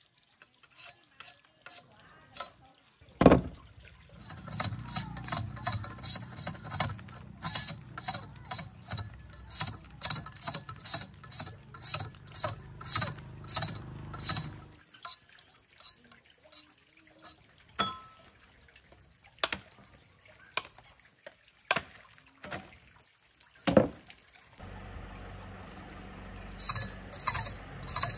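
Knife scraping the rind off sugarcane stalks: a long run of short sharp scrapes, about two a second, with two heavier knocks along the way. A low engine hum sits underneath for part of the time.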